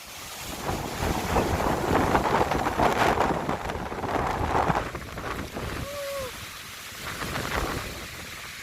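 Strong storm wind gusting and buffeting the microphone in surges, loudest in the first few seconds. A short, slightly falling squeak sounds once about six seconds in.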